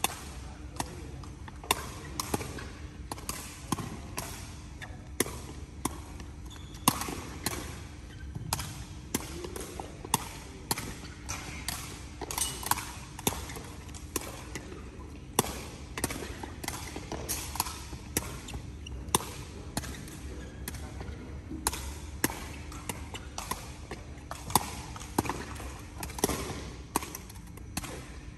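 Sepak takraw balls being kicked and bouncing on the court floor: a long irregular run of sharp smacks, about one or two a second, over a steady low hum.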